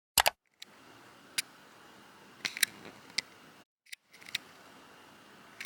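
A few sharp, scattered clicks over a faint steady hiss, with a louder double click right at the start.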